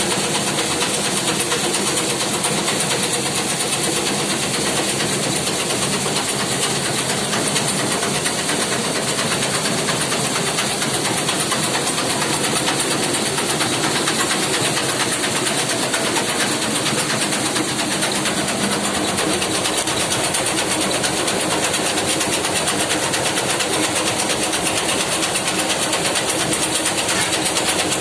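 Muri (puffed rice) and chana roasting machine running, a steady mechanical noise with a fast, even clatter that holds unchanged throughout.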